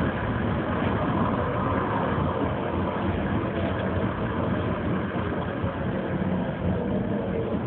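Steady rumble and running noise of a tram, heard from inside the car, with a faint steady whine over it.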